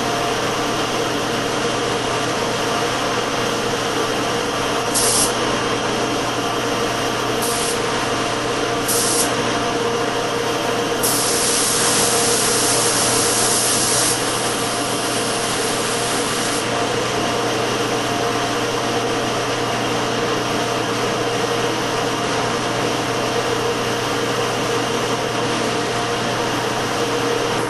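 Sata MiniJet mini spray gun hissing as it sprays urethane clear coat. There are three short bursts about five, seven and a half and nine seconds in, then one longer spraying pass from about eleven to sixteen seconds. All of it sits over a steady background rush and hum.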